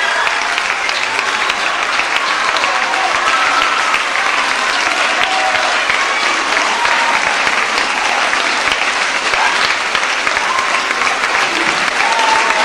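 Audience of students applauding steadily, with a few voices calling out over the clapping.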